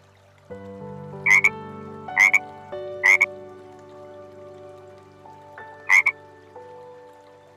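Four short, loud animal calls, three close together and a fourth a few seconds later, over background music with held notes.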